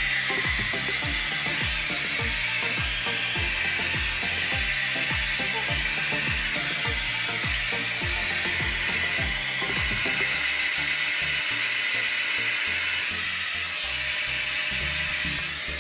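Handheld hair dryer running steadily, blowing over wet hair during blow-drying after a keratin treatment. Background music with a steady beat plays underneath.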